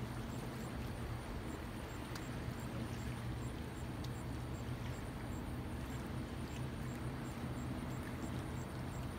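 Steady low hum of a boat engine running at cruise, with a faint high ticking repeating about twice a second.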